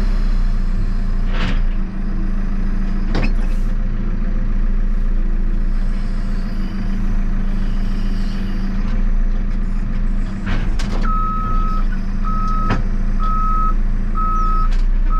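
JCB 3CX backhoe loader's diesel engine running steadily, with a few sharp knocks. About eleven seconds in, its reversing alarm starts beeping about once a second as the machine backs up.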